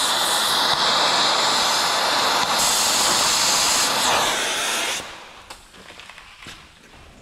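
Oxy-fuel cutting torch hissing loudly and steadily as it burns through rusted bolts on a truck frame. The hiss cuts off suddenly about five seconds in.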